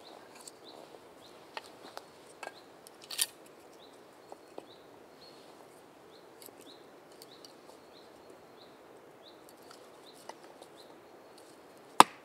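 A few light knocks and clatters of wood being handled in the first few seconds, then a small bird's short chirps repeating faintly for several seconds. Near the end comes one sharp hatchet strike into wood, the loudest sound.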